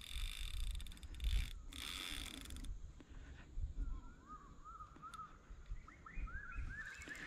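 Short bursts of fast rattling hiss in the first few seconds, then a run of short rising chirps that climb gradually higher toward the end, like a bird calling, over a low rumble.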